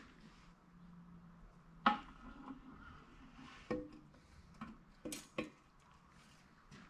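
Metal clanks as the auxiliary-section housing of an Eaton 13-speed transmission is lowered over its gears and countershafts and seated: a sharp clank just before two seconds in, another near four seconds, then three lighter knocks about a second later.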